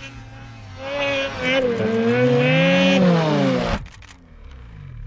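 Snowmobile engine running, then revving up and down hard. It cuts off abruptly about four seconds in.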